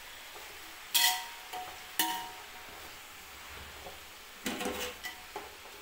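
A spoon knocks twice against an aluminium cooking pot, a second apart, each knock ringing briefly; then a short burst of scraping clatters as sliced tomatoes and onions are stirred in the pot.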